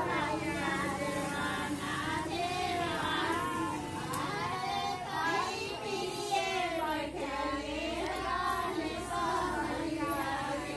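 Female voices singing a song, a continuous high-pitched melody.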